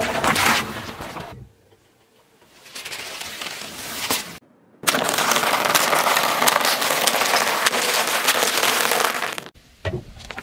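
Car tyre rolling over a row of crisp waffle ice-cream cones and crushing them, a dense crackling crunch lasting about four and a half seconds. It follows a shorter stretch of crackling from the tyre crushing something else, which fades out about a second and a half in.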